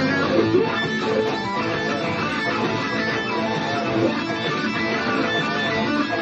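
Guitar improvising blues lines over a dirty blues backing track, with some notes bent up in pitch.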